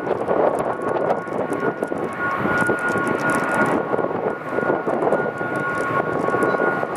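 McDonnell Douglas KC-10 Extender's three General Electric CF6 turbofans running as the tanker taxis: a steady jet rumble with a high fan whine held on two steady pitches.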